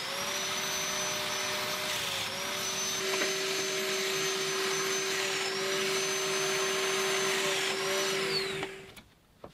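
Festool Domino joiner running with its dust extractor as it plunge-cuts mortises into pine shelves, the motor whine dipping briefly about three times under load. Near the end it winds down and stops.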